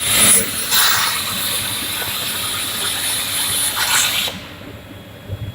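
Hypertherm MAXPRO200 plasma torch of a CNC cutting table cutting metal: a loud, high hiss with a thin steady whistling tone, which cuts off suddenly about four seconds in.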